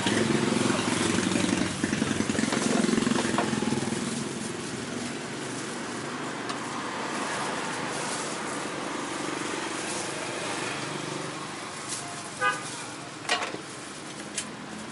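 Street traffic running past, with a motor vehicle's engine loudest in the first few seconds. About twelve and a half seconds in a horn gives one short toot, followed by a couple of sharp knocks.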